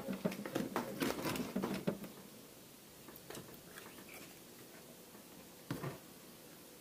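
Kitchen knife cutting the leg joint of a raw whole chicken on a plastic cutting board: a quick run of small cutting and tearing sounds for about two seconds, then quieter handling with a single knock near the end.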